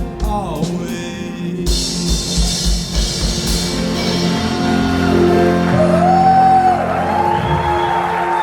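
Live rock band playing the closing bars of a song: drum hits lead into a cymbal crash and a long held final chord on guitars, bass and keyboard about two seconds in. Over the chord, a sung note is held near the end.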